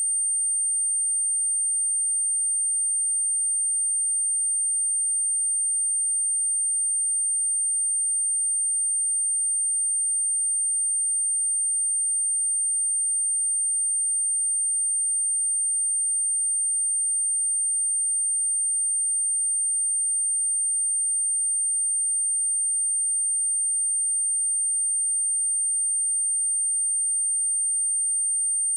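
Pure 8797 Hz sine-wave test tone, a single high-pitched steady tone at a constant level, played to test a speaker or shake out water and dust.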